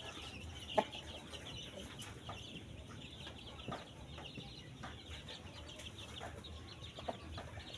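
A flock of chickens in a coop, many birds clucking and calling softly over one another, with a few faint knocks.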